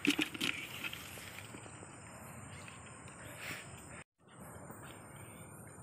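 Night riverside ambience: a steady high insect drone over a low even hiss. A few short splashy knocks sound in the first half-second as a hand works in a water-filled container. The sound cuts out completely for a moment about four seconds in.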